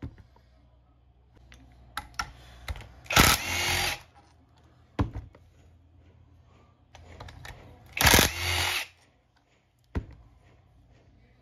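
Two short bursts of a power tool, each under a second and about five seconds apart, with scattered sharp clicks and knocks between them.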